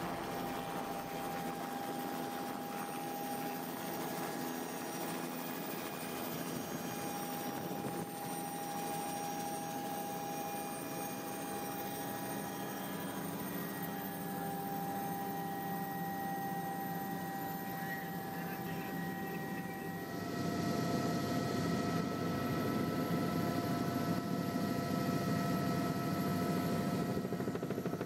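Helicopter engine and rotor noise heard from inside the cabin in flight: a steady drone with constant high tones. About 20 seconds in it gets louder and fuller in the low end.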